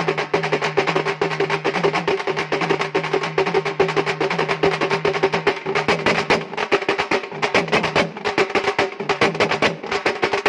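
A halgi ensemble: many Maharashtrian halgi frame drums struck with sticks together in a fast, dense, unbroken rhythm, the drumheads ringing at a steady pitch under the rapid strokes.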